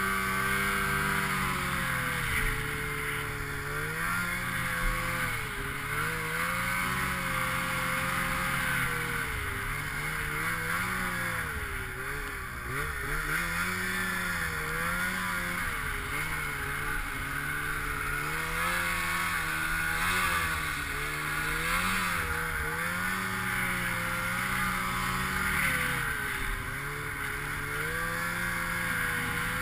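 Snowmobile engine running while being ridden through deep snow, its pitch rising and falling every couple of seconds as the throttle is worked. A steady higher hiss runs over it.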